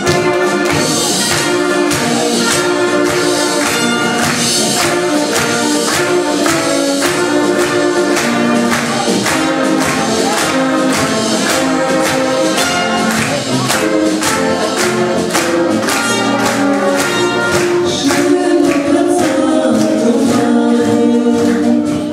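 Egerland-style brass band playing tuba, trumpets and clarinets to a steady beat, with voices singing along.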